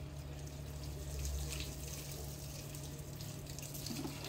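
Water running from a garden hose into a plastic bowl of cut potatoes, splashing as they are rinsed by hand; near the end the bowl is tipped and the water pours out onto the tiled floor.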